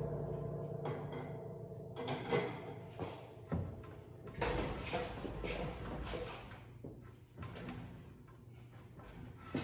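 Steel pieces being handled in a workshop: a dozen or so irregular knocks and clatters, with a fading metallic ring left over from a heavy thud just before.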